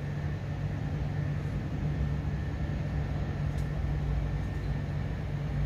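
Steady low electrical hum of electric trains standing at the platforms, with a low rumble underneath; no train passes and nothing sudden happens.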